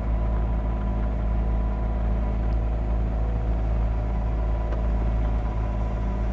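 Caterpillar 259D3 skid steer's diesel engine running steadily under load, with a deep rumble, as the machine grades and pushes dirt with its blade.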